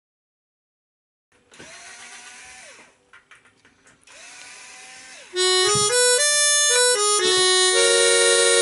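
A small mouth-blown button reed instrument: after a second of silence it is breathed into softly with a faint tone and a few key clicks, then played loudly in a short run of stepped notes up and down, ending on a held chord.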